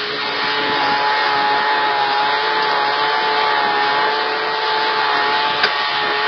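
Air compressor running steadily as it inflates air lifting bags under an overturned lorry: a hiss with a steady whine.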